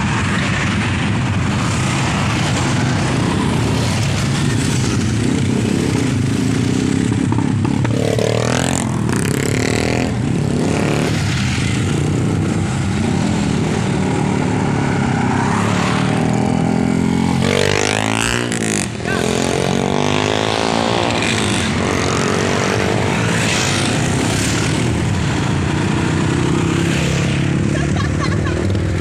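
Motorcycle engine running while riding, under steady wind and road noise, its pitch rising and falling a few times.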